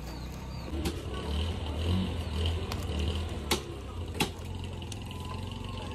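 Meat being chopped on a wooden chopping block: three sharp knocks, about a second in and then twice close together a little past the middle, over a low steady rumble.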